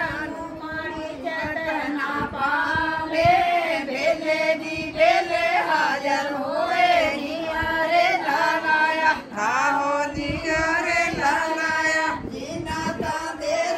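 A group of women singing a Punjabi folk song together, their voices following one melody in long, wavering notes.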